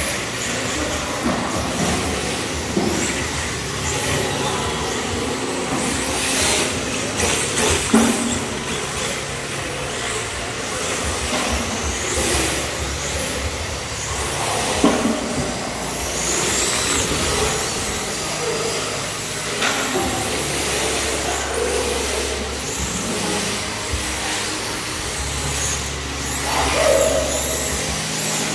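RC drift cars sliding around an indoor track: the hard tyres hiss and rasp on the smooth floor while the electric motors whine, rising and falling with the throttle. There are a few sharp clacks.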